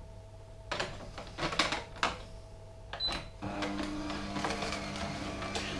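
Plastic knocks and clunks as the plunger is pushed down the feed chute of a Philips masticating juicer, then, about three and a half seconds in, a steady low hum starts as the juicer's motor and screw run.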